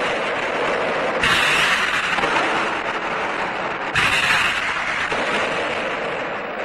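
Jai alai pelota striking hard, twice, about three seconds apart. Each strike is a sudden loud crack that rings on for about a second in the hall's echo, over a steady background hiss.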